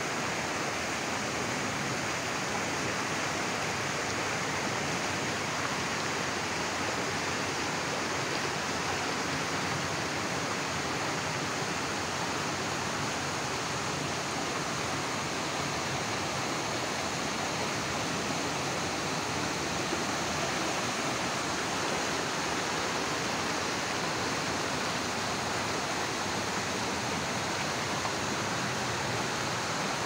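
A rocky mountain stream rushing over boulders and small cascades: a steady, unbroken rush of water.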